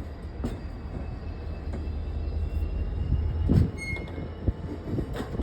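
Loaded stone wagons of a freight train rolling slowly over the rails: a steady low rumble with a thin, faint wheel squeal and scattered knocks, and a louder clank about three and a half seconds in.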